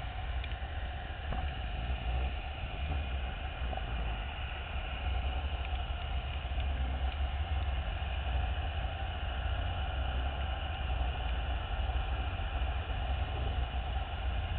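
Steady low underwater rumble of machinery, with a faint even hum above it and no breaks.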